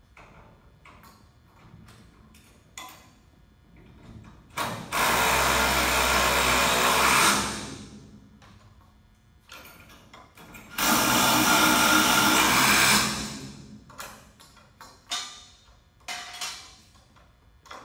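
A handheld power tool runs in two bursts of about three seconds each, with short clicks and knocks of hand work between them.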